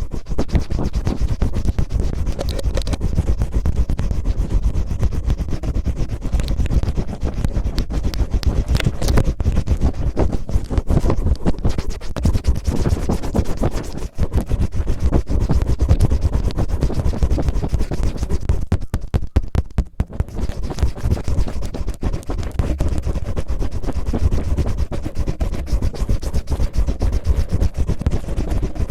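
Cellophane crinkled and rubbed close to the microphone to imitate ear cleaning: a dense, rapid crackling and scratching, with brief pauses about 14 and 20 seconds in.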